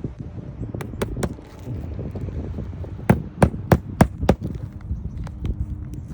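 Hammer driving roofing nails into a replacement shingle: a few sharp strikes about a second in, then a run of five quick blows at about three a second.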